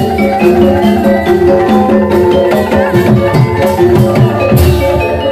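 Live Javanese gamelan music accompanying an ebeg (kuda lumping) trance session: metallophones ring steady melody notes over quick hand-drum strokes, many of which drop in pitch.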